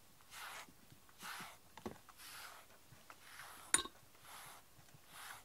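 A grooming brush drawn in firm strokes through a cat's coat, a soft swish about once a second as it pulls out loose shedding fur. A single sharp click about two thirds of the way through.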